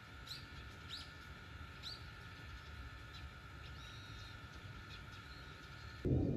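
Faint outdoor ambience with a few short, rising bird chirps, about one a second at first, then fainter. A sudden low rumble starts near the end.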